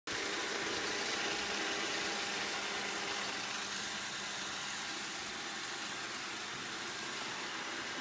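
iRobot Roomba robot vacuum running: a steady whirring hum of its fan and brush motors, with a few faint steady tones in it, getting slightly quieter over the stretch.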